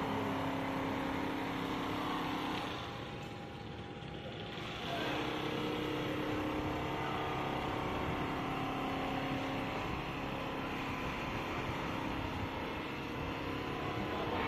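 Computerized single-needle quilting machine running, its needle head stitching as the gantry moves over the quilt: a steady mechanical hum with a constant whine that drops quieter briefly a few seconds in.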